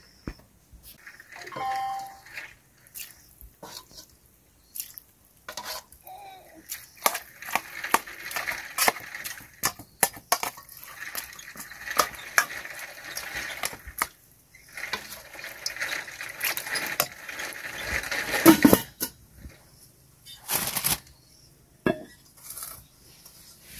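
A plastic rice paddle scraping and knocking against a metal cooking pot as cooked rice is scooped out, with many small clinks and one louder knock near the end.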